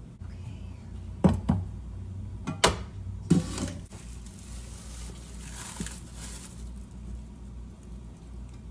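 Kitchen handling sounds: a few sharp knocks and clatters a second or so in, then a couple of short swishes of noise, over a steady low hum.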